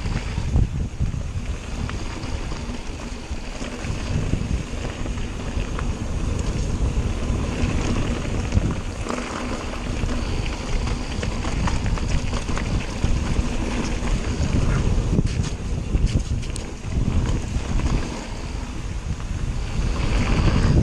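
Wind buffeting the microphone as a Cotic Flare mountain bike rides fast downhill. The tyres rumble over dirt and gravel, and the bike rattles and clicks over bumps, most busily about three quarters of the way through.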